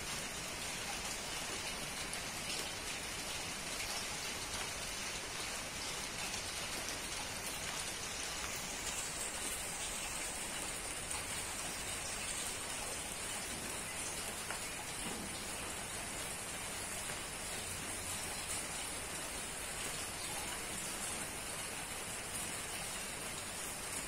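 Steady rain falling on the leaves and branches of a papaya tree.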